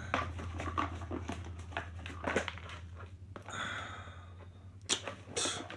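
Crinkling and rustling of packaging being handled, a series of short irregular handling noises over a steady low hum.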